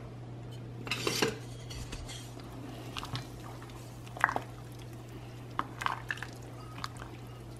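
Metal spoon clinking against a stainless steel pot as soup is stirred, a few scattered clinks over a steady low hum.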